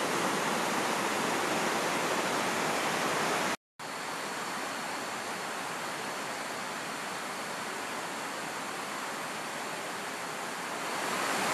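Fast river water rushing over rocky rapids, a steady rush that cuts out abruptly about three and a half seconds in, then resumes a little quieter with a faint steady high tone over it.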